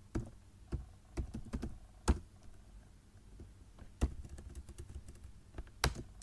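Computer keyboard keystrokes as terminal commands are typed: a dozen or so separate key clicks at an uneven pace. A louder keystroke comes about two seconds in, then a pause of nearly two seconds before a few more keys near the end.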